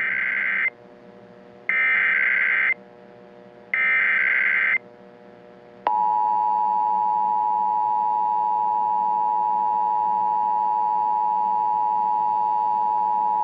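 Emergency Alert System SAME header: three roughly one-second bursts of data tones about a second apart, followed about six seconds in by the EAS two-tone attention signal, a steady dual tone that holds to the end. A faint low drone sits underneath.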